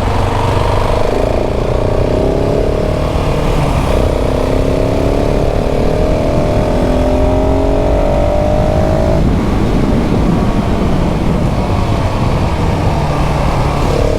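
KTM 690 SMC R's single-cylinder LC4 engine, on its stock exhaust, pulling under acceleration. Its pitch steps down once about four seconds in, climbs steadily, and drops when the throttle closes about nine seconds in, after which it runs on less evenly.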